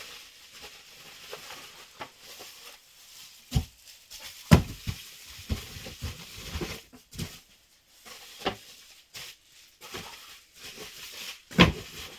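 Parts and packaging being handled on a hard surface: scattered knocks and clicks over light rustling, with a sharp knock about four and a half seconds in and another near the end.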